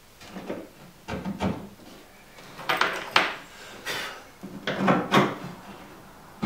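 Wooden canoe seat frame being handled and lined up under the gunwale: a series of irregular knocks and scrapes of wood on wood, with light clinks from the bolts hanging through the gunwale.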